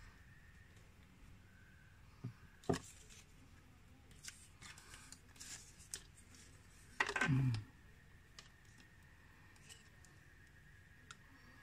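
Small handling noises of a camera and screen-protector packaging on a tabletop: two sharp clicks, then light rustling and tapping of plastic sleeves and film, and one louder, longer rustle-and-knock about seven seconds in.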